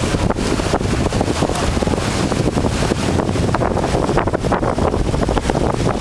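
Strong wind buffeting the microphone on the deck of a sailing cutter under way: loud, unbroken, gusty rushing noise.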